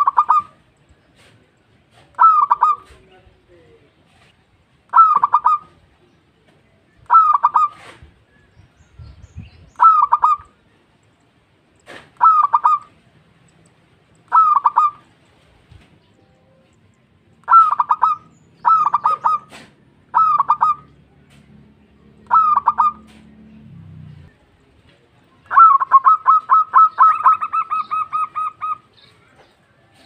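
Zebra dove (perkutut) cooing: a short rolling coo repeated about every two seconds, about a dozen times, then near the end a longer run of rapid staccato notes.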